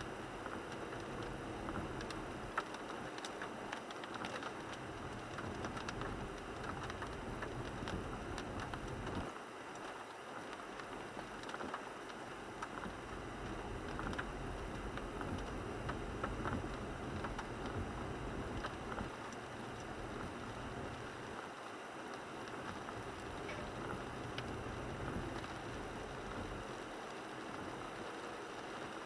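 Inside the cabin of a 1998 Toyota 4Runner driving in the rain: a steady wash of tyre and road noise on wet pavement under the engine, with many small raindrop ticks on the windshield and roof. The low rumble eases briefly twice.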